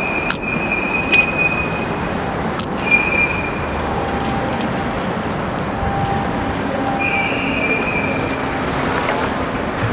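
City street traffic noise: a steady wash of vehicle sound with short, thin high-pitched tones that come and go and a few sharp clicks.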